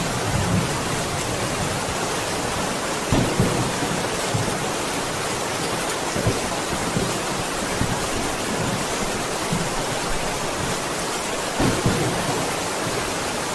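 Steady heavy rain, a dense even hiss, with a few short low thuds about three, six and twelve seconds in.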